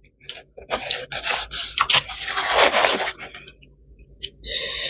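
Close-up mukbang eating sounds: wet chewing and smacking clicks, with scraping and rustling as fingers pick through fried fish in a plastic takeaway bowl. Near the end comes a breathy hiss about a second long.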